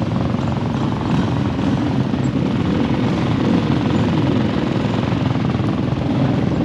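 Off-road motorcycle engine idling, a steady rapid putter with no revving.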